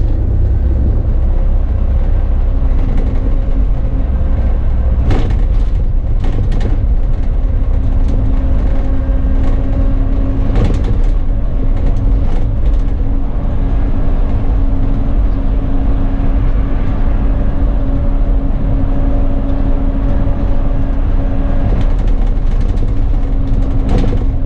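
A bus on the move, heard from the driver's seat: a steady low engine and road rumble, with a steady hum joining in about a third of the way through and a few brief knocks and rattles.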